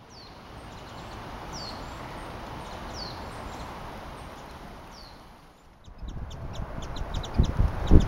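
Small songbird calling in a thicket: single thin down-slurred calls, four of them about a second and a half apart. After a cut, a quick run of short high chips from small birds, over a low rumble near the end.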